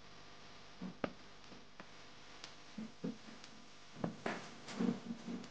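A spoon stirring and scraping batter through a fine mesh steel strainer into a steel tin: a few sharp clicks and taps of the spoon against the mesh and rim, with soft wet swishes that come thicker near the end.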